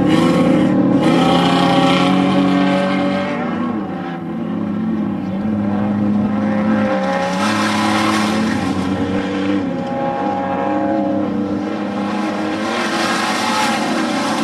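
Off-road desert race vehicle engine running hard, its pitch stepping up and down as it accelerates and backs off.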